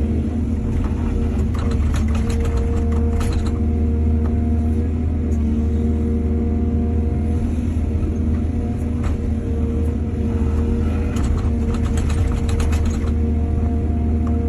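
Excavator's diesel engine running steadily with a low drone, with two spells of rapid clattering and knocking, one early and one near the end, as the machine works.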